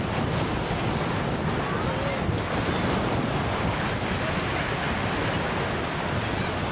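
Steady wind buffeting the microphone, mixed with surf washing onto the beach.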